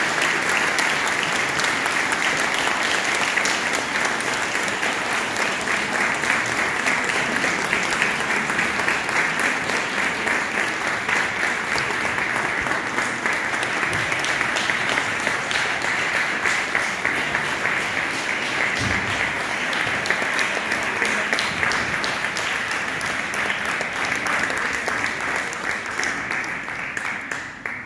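Audience applauding, a steady mass of clapping that goes on for nearly half a minute and fades out near the end.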